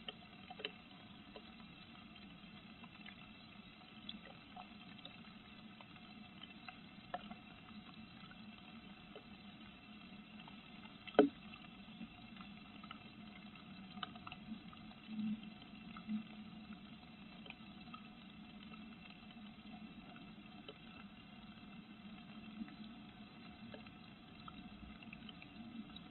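Rain pattering on a wooden nest box: a faint steady hiss with scattered light ticks. One sharp knock stands out about eleven seconds in.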